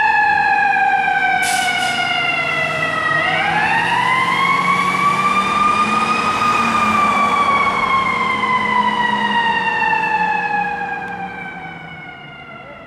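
Fire engine siren wailing over the truck's engine. Its pitch slides down, winds back up about three seconds in, then falls slowly again and fades as the truck moves off, and it starts to rise once more near the end.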